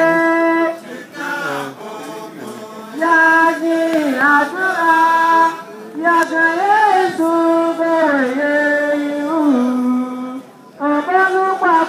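A group of singers singing an unaccompanied melody in long held notes, phrase by phrase, dropping away briefly about two seconds in and again near the end.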